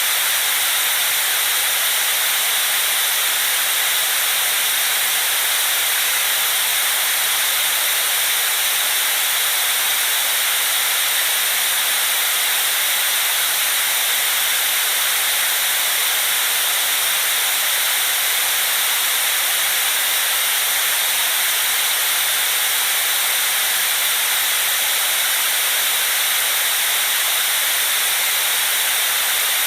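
Steady white-noise hiss, even and unchanging, weighted toward the high end with little low rumble.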